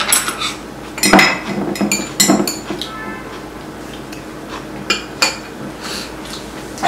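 Metal spoons and chopsticks clinking against ceramic bowls and plates as people eat, in separate sharp clicks: about a second in, around two seconds in, and two close together around five seconds.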